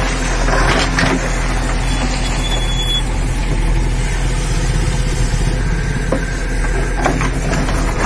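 JCB 3DX backhoe loader's diesel engine running steadily as the bucket works a heap of broken stone, with a few clatters of stone against the steel bucket about a second in and again near the end.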